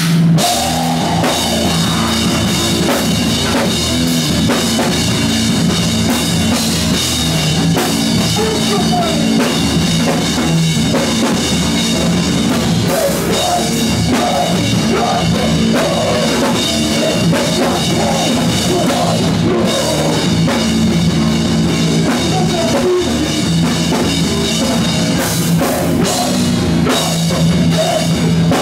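Live rock band playing loud in a small venue: a full drum kit with kick drum and cymbals driving under guitars.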